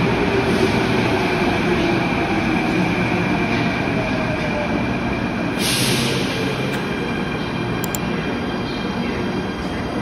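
Athens Metro 2nd Generation subway train slowing along the platform: a steady rumble of wheels on rail, with the motor whine falling in pitch as it slows. There is a short burst of hiss about six seconds in.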